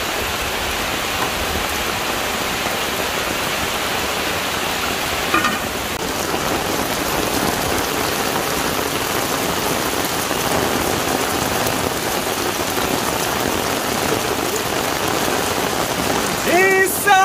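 Heavy rain falling steadily, a dense even hiss. Voices and laughter come in near the end.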